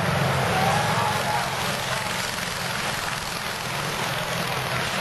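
Pre-1910 board-track racing motorcycles running at speed, their engines giving a steady, rapid low rattle.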